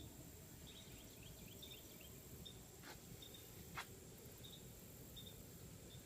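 Near silence: faint outdoor background with scattered short high chirps and two soft clicks a little under a second apart, about three seconds in.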